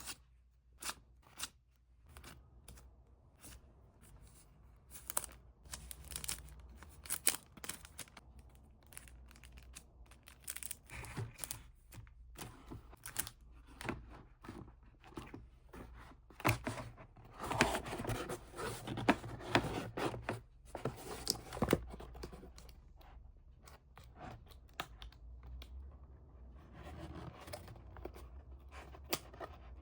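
Hands packing small cards: tearing and crinkling of paper or plastic wrapping, with snips of scissors and small clicks. The rustling grows dense and loudest a little past the middle, then thins out.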